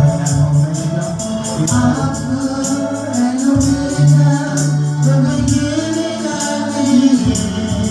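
Gospel worship music: singing with a choir, a keyboard and a steady tambourine beat.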